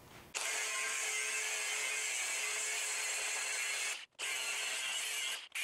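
Angle grinder with an abrasive cutoff wheel cutting through sheet steel: a steady high-pitched grinding with a faint motor whine underneath. It starts about a third of a second in and cuts out abruptly for a split second twice near the end.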